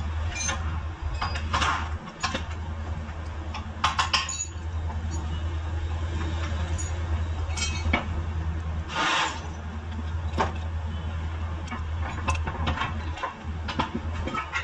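Metal tools and car suspension parts clinking and knocking at irregular intervals over a steady low hum, with one longer rasp about nine seconds in.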